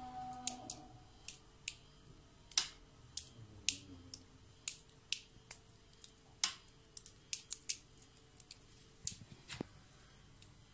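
A series of short, sharp, irregular clicks, about two a second, which stop shortly before the end.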